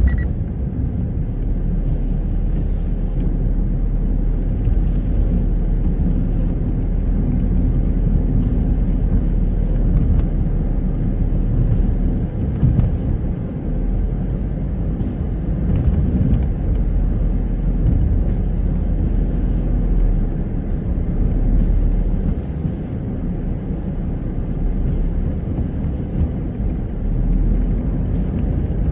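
A car on the move, heard from inside the cabin: a steady low rumble of engine and road noise.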